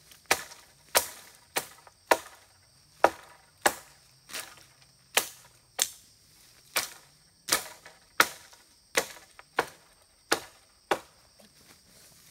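Chopping into wood with a blade: a steady run of sharp blows, about one every two-thirds of a second.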